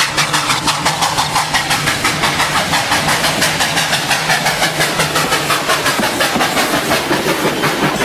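Steam train chugging: rapid, even chuffs over a hiss.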